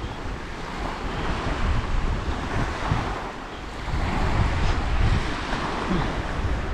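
Small waves breaking on a sandy beach, with wind rumbling on the microphone, a little louder from about four seconds in.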